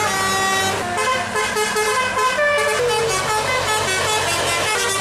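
Telolet bus horns playing melodic tunes: quick runs of stepped notes that change pitch several times a second, over a steady low hum.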